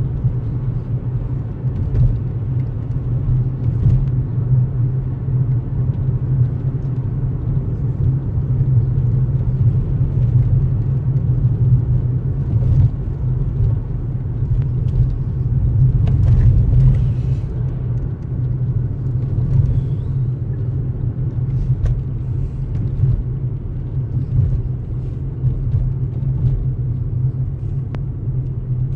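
A car driving along a town street, heard from inside: a steady low rumble of engine and tyres on the road.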